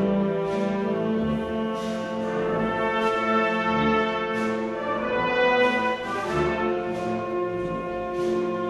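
Processional brass band playing a slow Holy Week march: held brass chords over low bass notes, with a percussion stroke every second or so.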